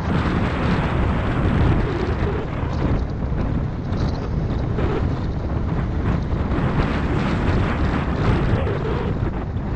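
Steady wind noise on the microphone of a camera riding on a moving 250cc X-Terra motorcycle, over the low sound of its engine and tyres on a loose gravel road.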